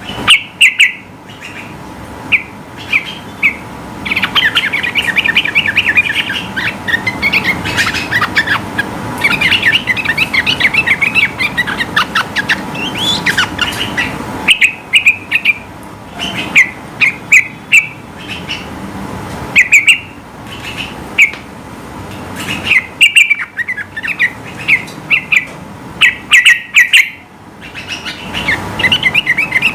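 Yellow-vented bulbul (trucukan) singing vigorously. Long runs of rapid chattering notes come through the middle, with short, loud, separate chirps before and after them. A faint steady hum runs underneath.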